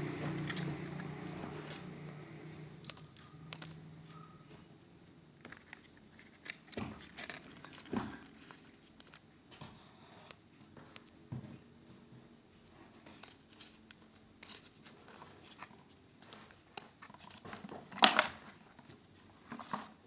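Small clicks, taps and rustles of hands working on a laptop's underside while swapping a RAM module, with a sharp clack about eighteen seconds in. A low hum fades away over the first few seconds.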